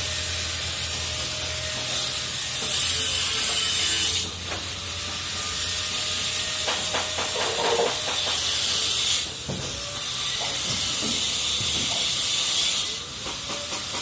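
A loud steady hiss that cuts out briefly about four seconds in and again about nine seconds in, with a few light knocks in the middle.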